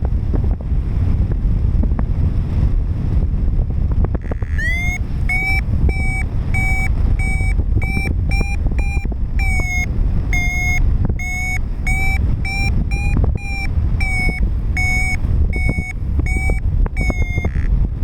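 Paragliding variometer sounding its climb tone: after a rising glide, a steady train of short beeps at about two a second, the sign of the glider climbing in lift. Heavy wind noise on the microphone throughout.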